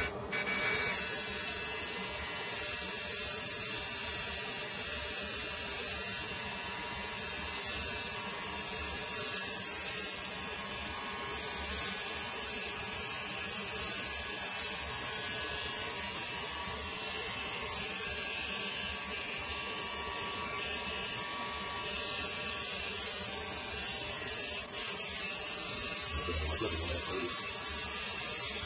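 Electric hair clippers running steadily while being passed through hair.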